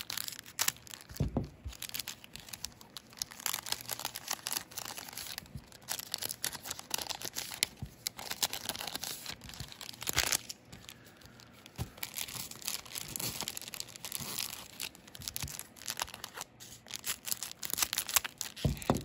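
Weiss Schwarz foil booster packs being torn open one after another, the wrappers crinkling and crackling in irregular handling noise.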